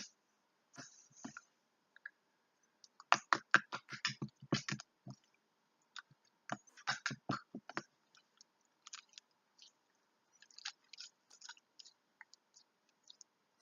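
Slime being poked and squeezed with fingers: bursts of wet clicking and popping squelches, coming fast about three seconds in and again around seven seconds, then sparser.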